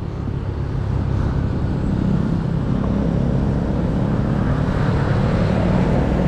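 Steady rush of wind and road noise on the microphone of a moving e-bike, heaviest in the low end, with motor traffic running alongside on the road.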